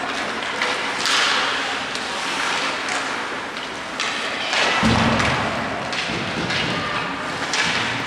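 A heavy low thud about five seconds in, amid scattered sharper knocks and a steady background noise of a game.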